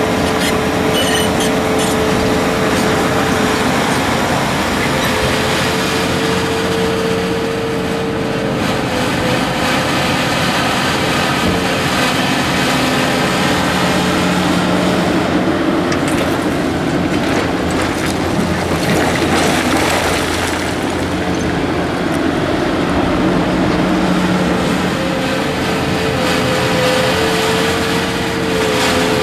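Volvo EC480D excavator working: its diesel engine and hydraulics run steadily, with a rougher rush of noise about halfway through.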